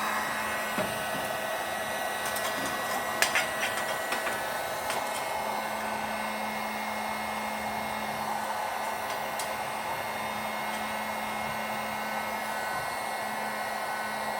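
Heat gun running steadily, an even blowing rush with a low hum, as it shrinks a BOA heat-shrink clamp onto a Kevlar-skinned hose cover. A few sharp clicks come about three seconds in.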